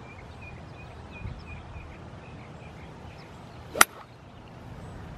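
Golf driver striking a teed ball: one sharp, short crack a little under four seconds in. Faint bird chirps come in the first couple of seconds.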